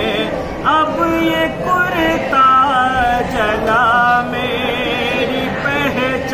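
A man chanting a noha, a Shia lament recited in Urdu, in long held notes that waver and bend in pitch.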